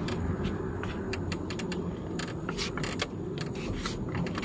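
Steering of a 1989 Jeep Cherokee XJ being turned by hand from lock to lock with the engine off, to bleed air from a newly installed power steering box: irregular clicks and rattles over a steady low rumble.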